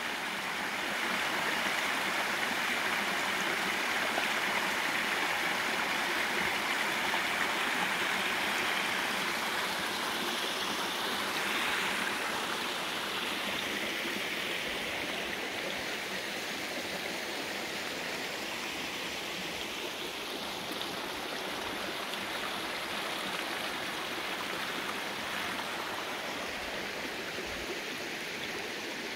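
Mountain stream rushing, a steady noise of flowing water that grows somewhat softer after about twelve seconds.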